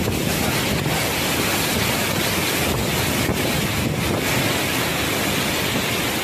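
Typhoon-force wind with driving rain, gusting steadily and buffeting the microphone.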